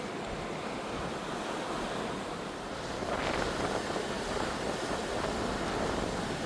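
Pacific Ocean surf, waves breaking; a wave breaks about three seconds in and the surf stays louder after it.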